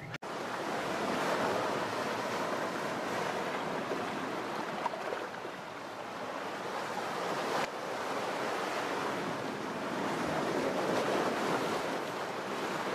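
Sea waves breaking and washing over shoreline rocks: a steady surf wash with no clear separate crashes.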